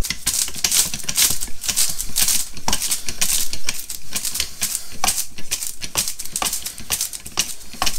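Hydraulic bottle jack being pumped by its handle bar, a steady run of metal clicks and rattles as the ram rises to take the weight of a motorcycle swing arm.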